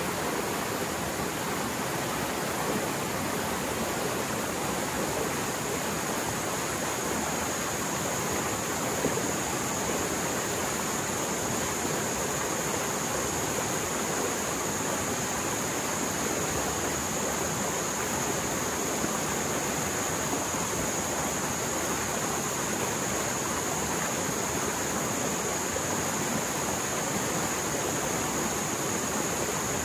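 Mountain stream in spate after heavy rain, its fast-flowing water making a steady, unbroken roar.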